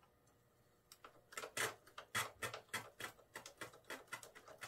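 Small Phillips screwdriver driving little screws into an RC plane's nose-gear mount: a run of rapid, irregular clicks and ticks, several a second, starting about a second in.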